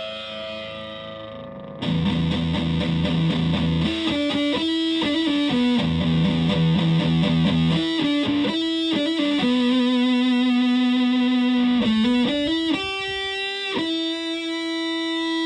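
Electric guitar with humbucker pickups played through a heavily modified Buzzaround fuzz pedal. A held note fades, then a low, chugging riff of repeated notes gives way to single-note lines with a bend, ending on a long held note.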